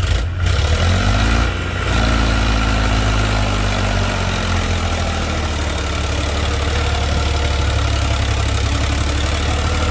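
Heavy diesel engine running steadily, low and even, with a brief rise in engine speed between about one and two seconds in.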